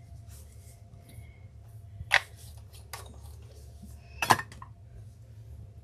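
Two short, sharp knocks about two seconds apart, from objects being handled and set down on the craft table, over a steady low hum.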